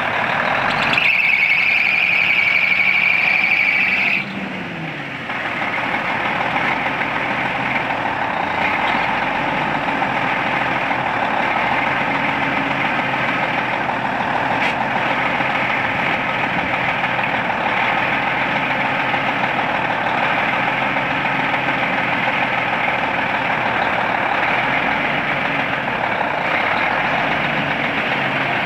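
International 8200 truck's diesel engine idling steadily, with a high whine for about three seconds near the start.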